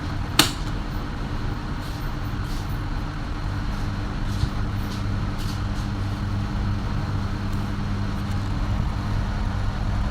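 Electric table fan's motor running on test after repair, with a steady mains hum; the fan is a little jammed. A single sharp click about half a second in.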